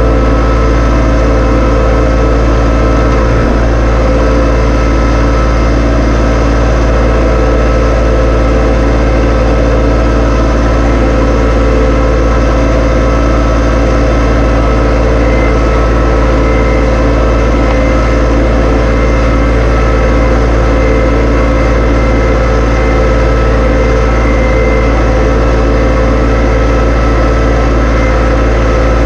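John Deere 2025R compact tractor's three-cylinder diesel engine running loud and steady at constant speed.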